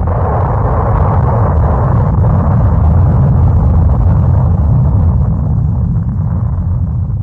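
A loud, sustained sound effect: a deep rumble with a rushing noise over it, holding steady and starting to fade near the end.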